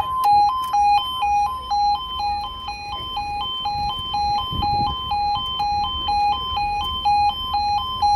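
UK level crossing audible warning alarm sounding a two-tone warble, a lower and a higher note alternating about twice a second, while the barriers lower across the road. It stops near the end, once the barriers are down.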